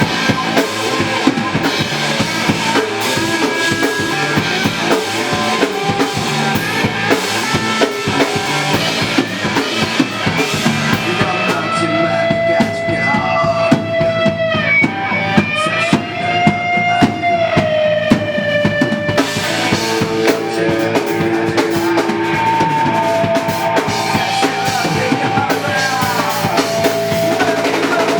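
Live rock band performing a song, the drum kit driving it with steady kick, snare and rimshot hits. Around the middle, a long held melodic line bends slowly up and down over the band.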